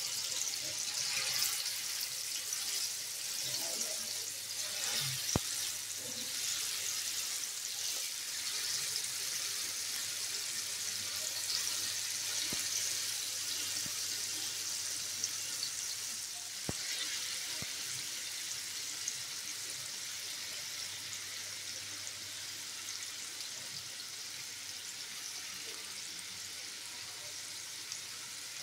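Marinated boneless chicken pieces sizzling as they shallow-fry in hot oil in a pan: a steady hiss with fine crackling and a few sharp clicks, easing slightly toward the end.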